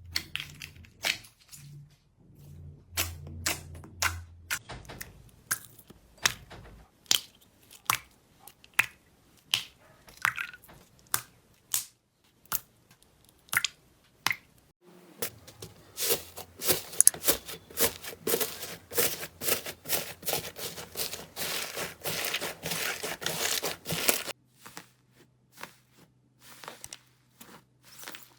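Slime being pressed and poked, with sharp irregular pops and clicks. From about the middle, a dense run of crackling lasts some nine seconds, then it thins out to a few scattered pops.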